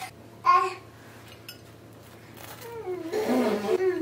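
A young child babbling: a short, loud vocal sound about half a second in, then a longer run of wavering babble over the last second and a half.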